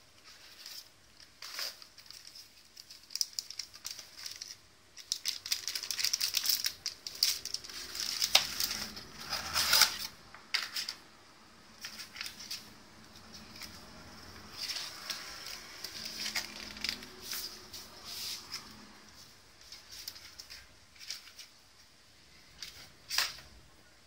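Hands unboxing a small cardboard box and its plastic-wrapped contents: irregular clicks, scrapes and rustles of cardboard and packaging. The handling is busiest and loudest in the first half, then thins to scattered taps, with one sharp click near the end.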